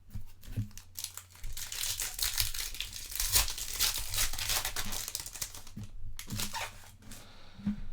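Foil wrapper of a Topps Chrome trading-card pack crinkling and tearing as it is pulled open by hand, a dense crackle that eases off near the end.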